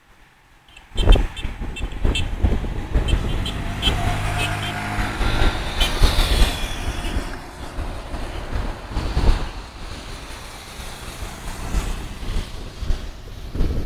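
Motor vehicles passing close, with a run of short high beeps early on and a horn sounding about four to six seconds in, over a heavy low rumble.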